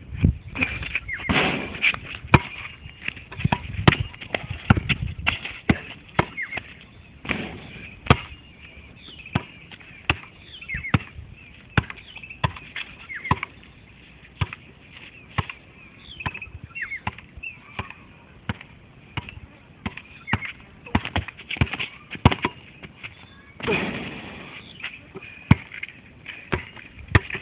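Basketball bouncing on a hard court as it is dribbled: repeated sharp thuds at an uneven pace.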